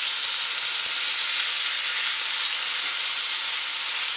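Pork frying in oil in a hot pan, a steady sizzle.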